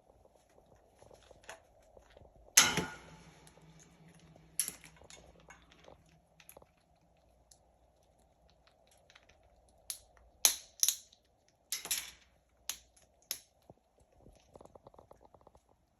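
Scarlet macaws cracking and crunching hard snacks in their beaks: scattered sharp cracks, the loudest about three seconds in and a quick run of them around ten to thirteen seconds, with small crunching ticks between.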